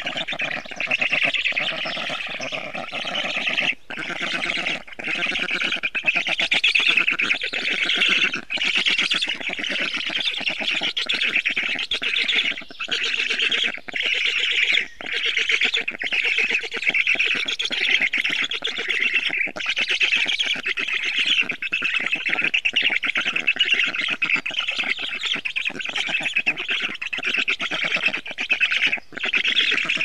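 Black stork calling: rapid pulsed calls follow one another almost without pause, broken by a few short gaps.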